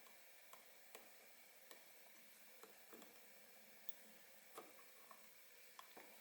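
Near silence with faint, irregular small clicks as a Yamaha YZ85 two-stroke cylinder is slowly worked down over the piston while the ring is held compressed.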